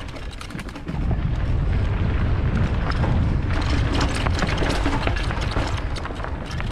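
Mountain bike ridden along a dirt trail: wind buffeting the microphone as a heavy low rumble, with many sharp clicks and rattles from the tyres and bike over rough ground. It gets louder about a second in.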